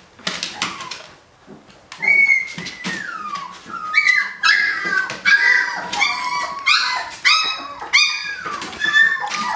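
A litter of puppies about 18 days old whining and yelping: many high-pitched cries that slide down in pitch, coming thick and fast after a quieter moment near the start.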